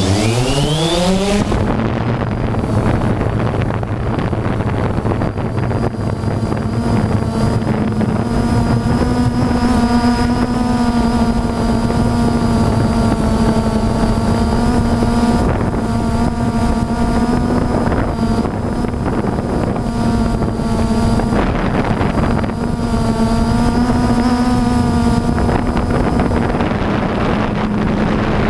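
FPV quadcopter's electric motors and propellers spooling up in the first second or two, then running as a steady buzzing whine that wavers slightly in pitch with throttle. Wind noise on the microphone runs underneath.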